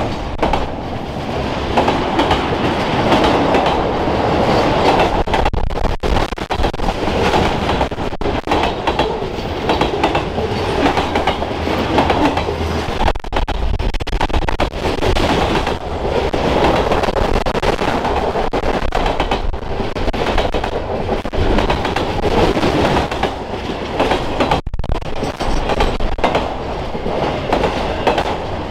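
Norfolk Southern freight train of autorack cars and covered hoppers rolling past close by: a steady rumble of steel wheels on rail with a continual clickety-clack of wheels crossing rail joints.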